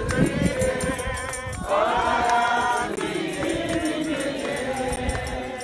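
A group of mourners singing a hymn together, in drawn-out phrases with wavering pitch.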